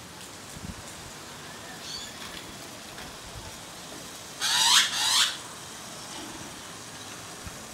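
Australian magpie giving two short, harsh calls back to back about halfway through, each sweeping upward in pitch.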